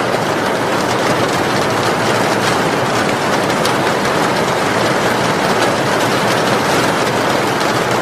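Rain falling on a zinc roof: a steady, dense hiss of drops with faint individual ticks.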